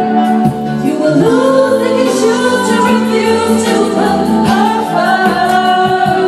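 Karaoke: backing music playing loudly through a sound system, with a woman singing along into a microphone.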